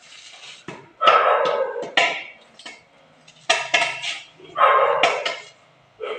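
A dog barking several times in loud, irregular barks, with short scrapes of a long-handled tool on the pavement.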